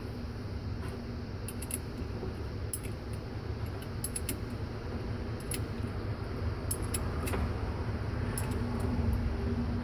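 Metal wrench clinking on battery terminal clamp bolts as they are tightened: scattered light metallic clicks at uneven spacing over a steady low rumble.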